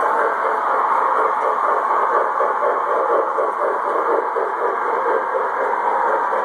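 O gauge model trains running on a layout's three-rail track: a steady running noise of motors and wheels with a fast, even rhythmic clatter.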